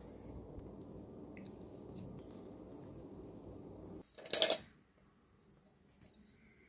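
A pull-tab aluminium drink can snapped open, a short sharp crack lasting about half a second, about four seconds in. Before it there is a low steady hum with a few faint clicks.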